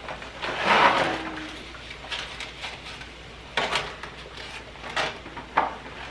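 A cardboard box of dry lasagna noodles being opened and the stiff noodles handled: a loud papery rustle about a second in, then several sharp clacks as the noodles knock against each other and the steel pot.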